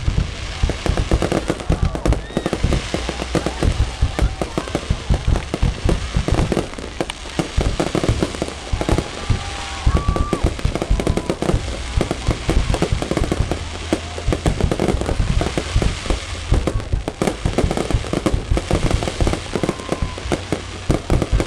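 Fireworks display: a dense, unbroken barrage of booms and crackling bursts, many going off every second.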